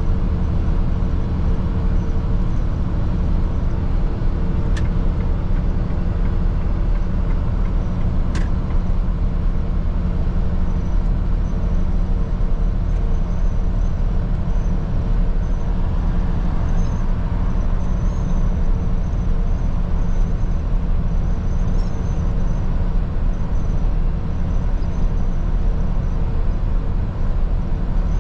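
Mercedes-Benz Atego truck's diesel engine and road noise heard from inside the cab while cruising at steady motorway speed: a constant low rumble with a steady hum over it, and a couple of faint brief clicks.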